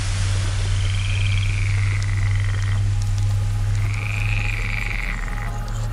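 Rippling, frog-like calls, a few of them, each rising and falling over about a second, over a steady low hum and hiss.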